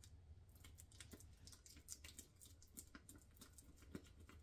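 Very faint, quick, irregular clicking and tapping of a spatula stirring royal icing in a small bowl, sped up to four times speed, over a low steady room hum.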